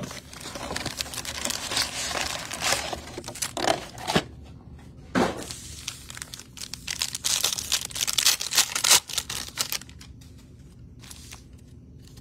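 Trading-card box packaging being torn open and crinkled by hand, with a run of scratchy rustles that dies down to a few faint ticks about ten seconds in.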